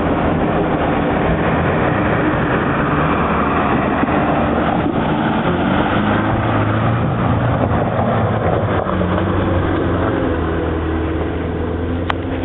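Land Rover engine running steadily under load, the revs picking up a little about six seconds in.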